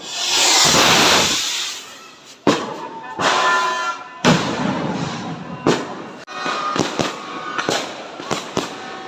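Fireworks: a loud rushing hiss swells and fades over the first second and a half. It is followed by a run of sharp bangs and crackles, a few at first and then several a second toward the end.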